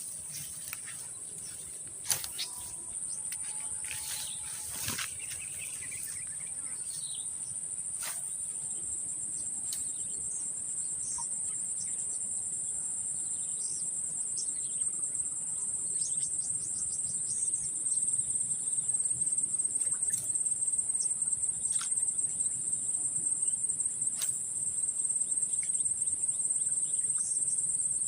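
Steady high-pitched insect chorus, a continuous trill that grows louder and more finely pulsing in the second half. A few sharp clicks stand out over it.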